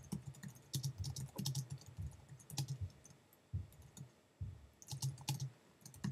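Typing on a computer keyboard: many short keystroke clicks in quick, uneven runs.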